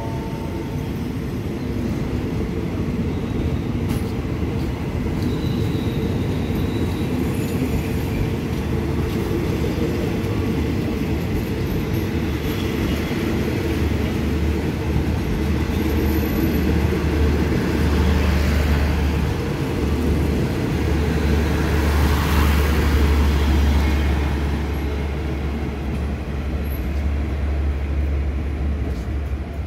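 Passenger coaches of a departing diesel-hauled train rolling past on the rails, a steady low rumble with swells of wheel and rail noise.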